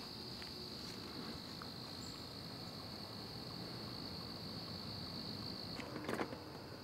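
Faint insect chorus: a steady, high-pitched trill that cuts off near the end, followed by a few soft clicks.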